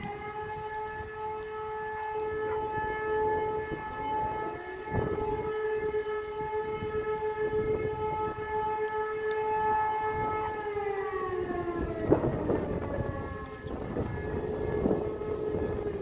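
E57 electro-mechanical motor sirens wailing. One siren rises at the start, holds a steady tone for about ten seconds and then winds down in pitch, while a second siren sounds on at a slightly higher pitch near the end. Two low thumps come through, about five seconds in and about twelve seconds in.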